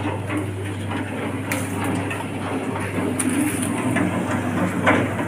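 Rotary drum roasting machine running, with a steady low motor hum, while fryums snack pellets tumble and rattle inside its wire-mesh drum, with an occasional sharper click.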